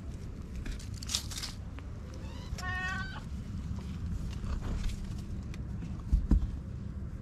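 A kitten gives one short, high mew about two and a half seconds in, with brief rustling before it. Near the end come two dull thumps, the loudest sounds here.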